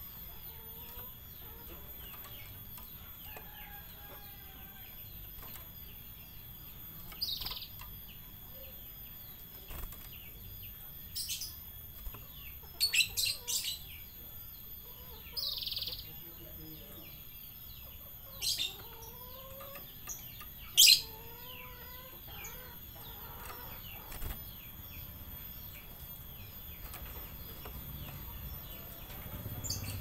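Domestic canary giving short, sharp chirps now and then, a few in a quick run of three or four, with chickens clucking faintly in the background.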